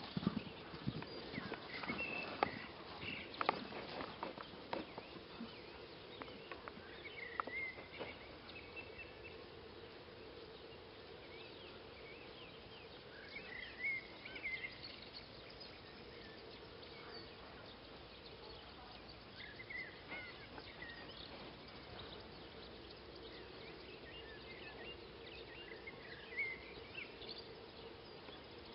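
Hoofbeats of a Małopolski stallion cantering in the first few seconds, fading out. Then quiet pasture ambience: a faint steady insect buzz with short bird-like chirps every few seconds.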